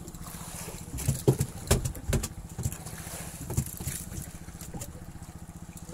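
Steady low hum of a fishing boat's engine, with a run of sharp knocks and thumps about one to two and a half seconds in and another a little later.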